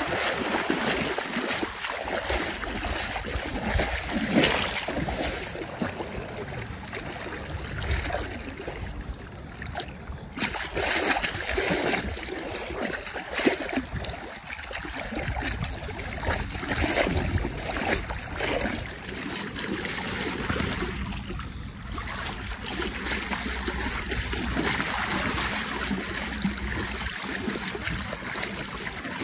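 Water splashing and sloshing unevenly as golden retrievers wade and swim through shallow water.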